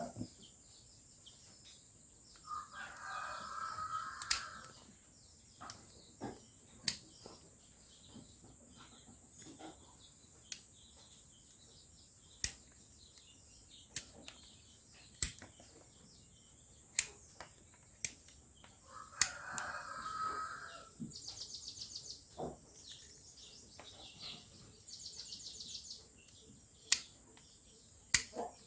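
Hoof-trimming shears cutting a sheep's overgrown hooves: sharp snips every second or two. An animal calls twice, each call lasting about two seconds.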